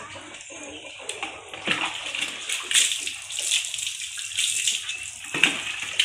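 Water poured from a dipper over a goat, splashing off its coat onto a concrete floor in repeated pours.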